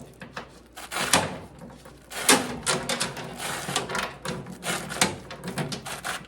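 Bicycle chain being pulled by hand through a solvent-filled chain-cleaning tool, its links clattering in irregular clicks and short rasps.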